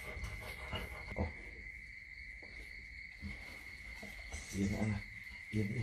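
A steady high-pitched tone holds without a break, with a low murmured voice twice near the end.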